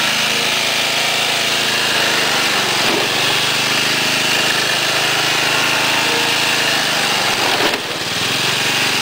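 John Deere Sabre lawn tractor's 11 hp Briggs & Stratton engine running steadily, with a brief dip near the end.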